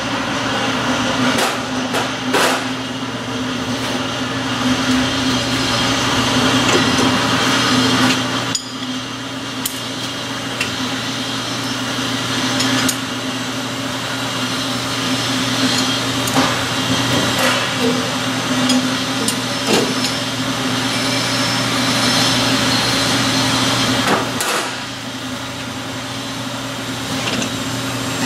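Scattered metal knocks and clinks of a mallet and wrench on a circular saw's arbor and blade during a blade change, over a steady machinery hum.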